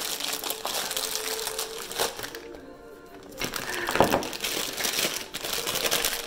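Packaging crinkling and rustling as gifts are unwrapped, with a quieter pause just before the middle and a sharp loud crackle about four seconds in. Music plays alongside.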